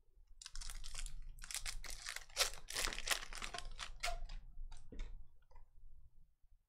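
Plastic wrapper of a Panini Spectra trading-card pack being torn open and crinkled by hand, a dense run of crackling from about half a second in that thins out near five seconds as the cards are slid out.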